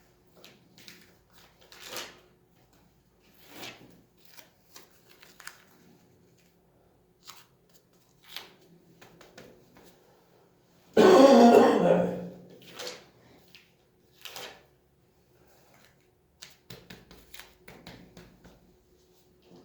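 About halfway through, a person gives one loud, rough throat-clearing cough lasting just over a second. Small clicks and rustles of handling are scattered throughout.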